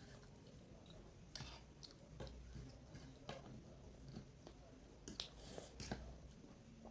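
A person chewing food close to the microphone: quiet chewing with scattered small clicks and smacks, several over a few seconds.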